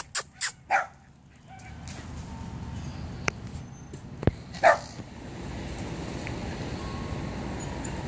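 Dog barking: a quick run of four short, sharp barks at the start, then a single bark a little past halfway.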